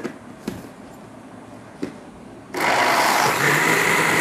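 A few clicks as the lid is fitted onto an electric countertop blender, then about two and a half seconds in the blender's motor switches on and runs loudly and steadily, whipping pomegranate seeds, sugar and water into juice, with a steady high whine.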